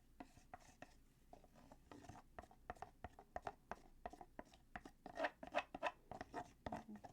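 Faint scraping and tapping of a mixing tool against a container of wet plaster, a quick run of short scrapes that gets busier and louder in the second half.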